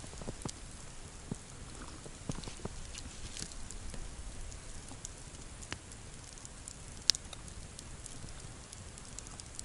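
Campfire crackling, with scattered small pops and one sharper crack about seven seconds in.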